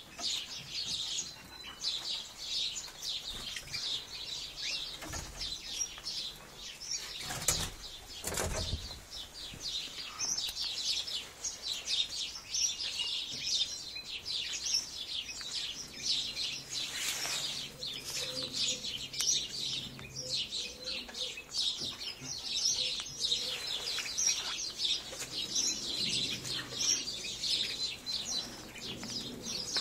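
A flock of small aviary birds, canaries among them, chirping and twittering without a break. Two sharp knocks come about seven and eight seconds in.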